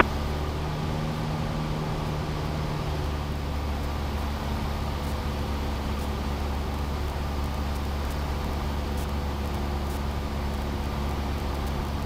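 Cessna 172's piston engine and propeller running steadily in flight, heard as a constant low drone inside the cockpit.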